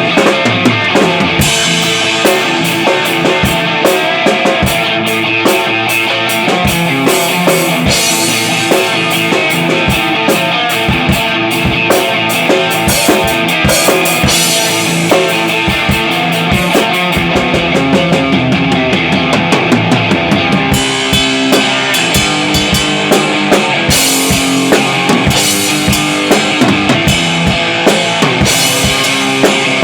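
Heavy rock music played on a drum kit with guitar, the drums keeping a steady, hard-hit beat.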